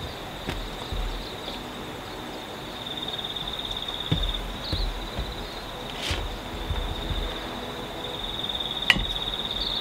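A high, steady insect trill that pulses in stretches, over light handling noise and a few sharp knocks, the sharpest near the end, as a wet cloth is laid out and seeds are tipped onto it from a wire sieve.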